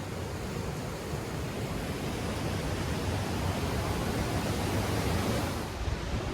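Creek water rushing steadily over rocks, an even noise with a low rumble. The hiss drops away briefly near the end.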